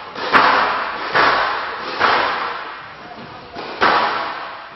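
Squash rally: the ball being struck by rackets and smacking off the court walls, a sharp hit about every second, each ringing on in the hall's echo.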